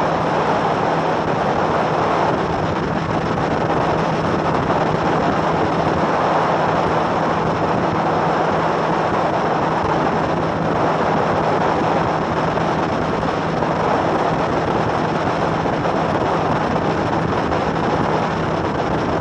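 Phoenix bass boat's outboard engine held at high speed, about 77 mph, running as a steady drone under a constant rush of wind and water.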